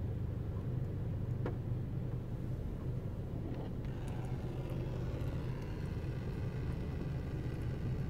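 Car engine idling, a steady low hum heard from inside the cabin; about four seconds in, a faint higher whine joins, likely from the automatic wash machinery starting up.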